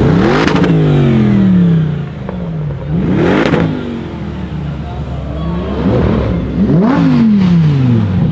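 Sports car engines revved hard as the cars pull away. There are four sharp revs, each climbing quickly and then dropping away: one at the start, one about three seconds in, and two close together near the end.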